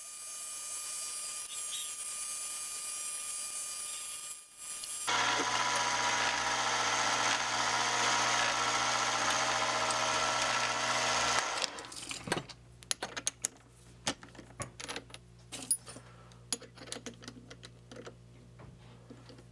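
Mini metal lathe running with a steady motor whine while a brass part is cut and parted off, with a short break about four and a half seconds in, then a louder stretch until about twelve seconds in. After the lathe stops, light metallic clicks and knocks of hands working at the three-jaw chuck.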